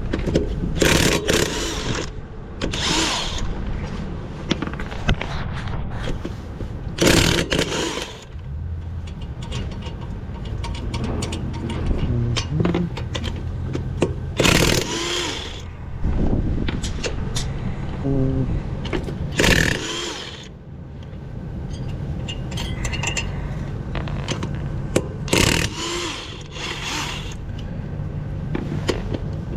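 Impact wrench run in repeated short bursts, about seven in all, loosening a car's lug nuts during a flat-tire change, over a steady low rumble.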